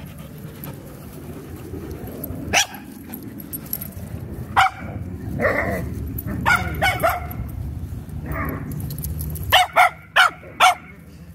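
Puppy barking in short, sharp yips, a few scattered ones and then four in quick succession near the end.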